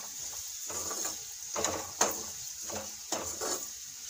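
A perforated metal spoon stirring and scraping sliced green chillies around an aluminium karahi in a series of short strokes, over a steady sizzle of the chillies frying in oil.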